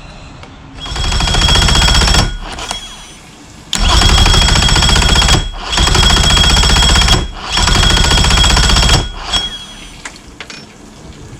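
Mercury Optimax 115 two-stroke outboard being cranked by its starter without firing, in four loud bursts of about a second and a half, each cutting off. The owner suspects the cranking keeps stopping because the battery is getting low.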